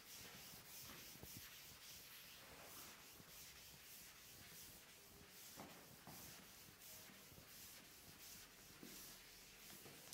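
Blackboard duster wiping chalk off a blackboard: faint, repeated rubbing strokes.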